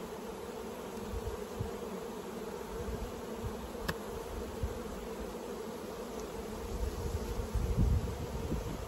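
Honeybees buzzing steadily over an opened hive, with a few low bumps near the end as the hive box is handled.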